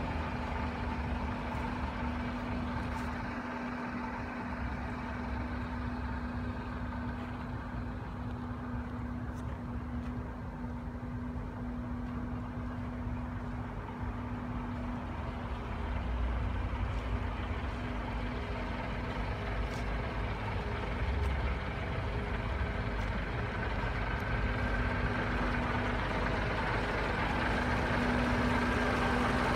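Scania R124 truck's 12-litre straight-six diesel idling steadily, a steady low hum throughout.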